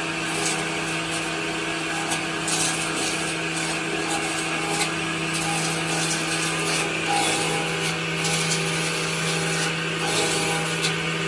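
Shop-built table saw's electric motor running with a steady hum while hardwood boards are fed through it. The cutting comes as repeated surges of hiss over the hum.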